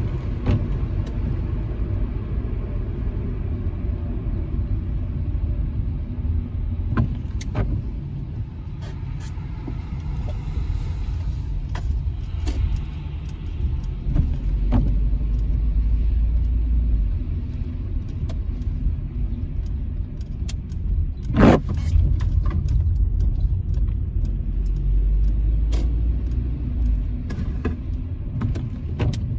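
A car driving slowly through town: steady low rumble of engine and tyres on the road, with a few faint clicks and one short, loud thump about two-thirds of the way through.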